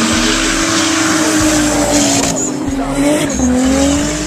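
Drift cars sliding at high revs over the steady hiss and squeal of tyres skidding. The engine note wavers with the throttle, dips briefly about three and a half seconds in, then climbs again.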